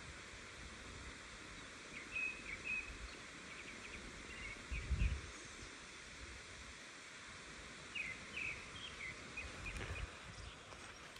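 Faint outdoor ambience with a steady hiss, and short high bird chirps that come a few times. There is a low bump about five seconds in, and more low bumps near the end as the phone is handled.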